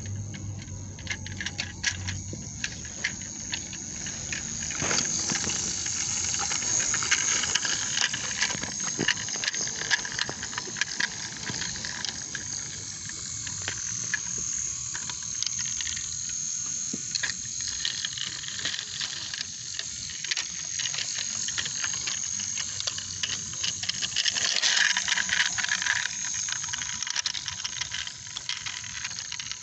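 Battery-powered toy train running along wooden track: a steady high-pitched motor whine with many small clicks and rattles from the wheels over the track.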